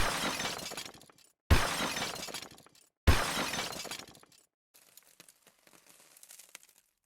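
Glass shattering three times, each crash sudden and loud and dying away over about a second, about a second and a half apart. Faint tinkling crackles follow.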